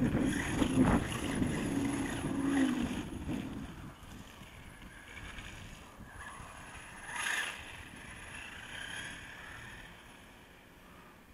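Traxxas E-Revo brushless RC truck running on loose dirt, its motor whine and tyre noise loudest at first, then fading about four seconds in as it drives away. A brief louder burst comes about seven seconds in.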